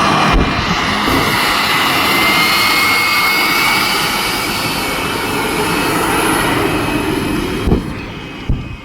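Westinghouse J34 jet engine of a jet dragster running loud, with a high whine that rises slowly in pitch. It dies down near the end, with a couple of sharp thumps.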